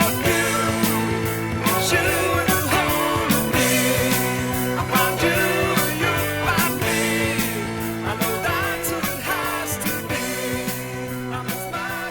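Rock band music played from a vinyl LP, with a steady beat, getting gradually quieter over the last few seconds.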